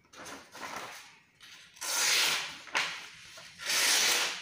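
A sheet of printed paper being sliced with a sharp fixed-blade knife: about four slicing strokes, each a short papery hiss, the two near the middle and the end the loudest. The blade cuts cleanly.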